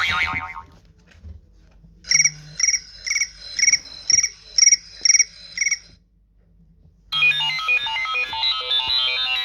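iPhone ringtones playing in turn: a cricket-like chirping tone, about two high chirps a second, runs for about four seconds and stops; after a second's pause another ringtone, a busy electronic melody, starts.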